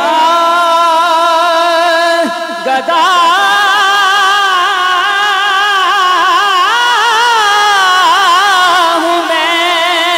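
Male voice singing a naat, drawing out long, ornamented notes that waver in pitch, with a short break about two and a half seconds in.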